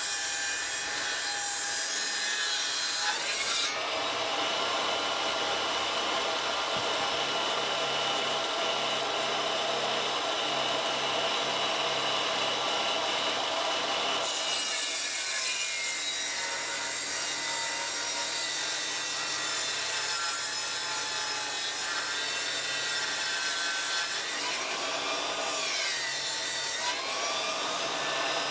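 Mac Allister table saw ripping lengthwise through a bark-covered log: the motor whines steadily under heavy load while the blade chews through the wood. About 25 seconds in, the whine sags in pitch as the motor bogs down in the thick wood, then picks back up.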